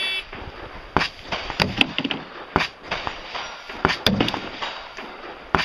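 A shot timer beeps once at the start, then comes a string of sharp, separate knocks as thrown knives strike the target area.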